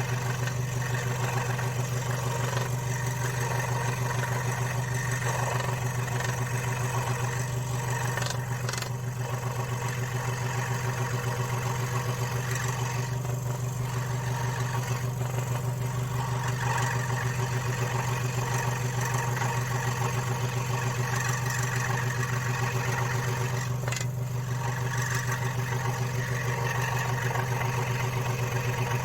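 Electric scroll saw running steadily while cutting wood: a constant motor hum with the fine, rapid chatter of the reciprocating blade.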